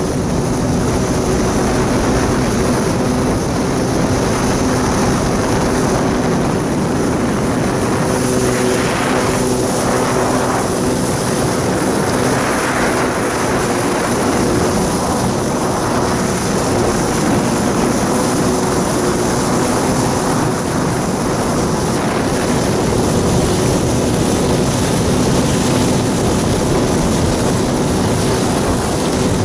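1993 Kawasaki 650SX jet ski's two-stroke twin engine and jet pump running at a steady cruising speed, a loud, even drone.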